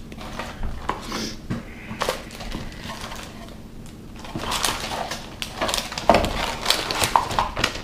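Crinkling, crackling plastic packaging being handled and opened to get soft plastic fishing baits out. A few scattered crackles at first, then a busy run of crinkling over the second half.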